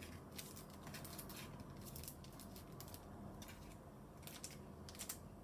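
Faint, scattered light clicks and rustles of packaged paper craft supplies being handled and set down.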